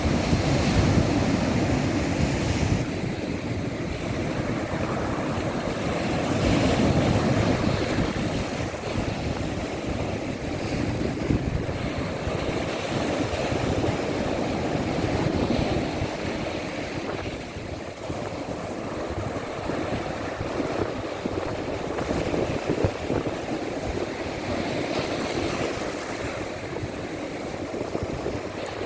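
Sea waves breaking and washing against rocks, a continuous surf that swells and eases every few seconds, loudest in the first few seconds and again about seven seconds in. Some wind on the microphone.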